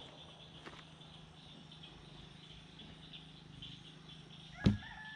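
Steady chirring of insects over a low hum. Near the end comes one sharp thump, and a rooster starts to crow.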